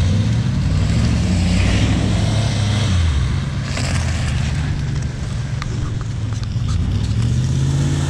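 Pickup trucks and a small SUV driving one after another on a muddy dirt track, their engines running under load as they climb a dirt mound. The engine note dips about three seconds in and rises again near the end, with a few sharp ticks in the middle.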